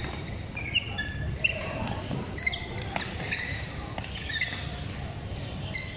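Badminton doubles rally: rackets hitting the shuttlecock with several sharp cracks, and players' shoes giving short high squeaks on the court mat, over a steady hall background.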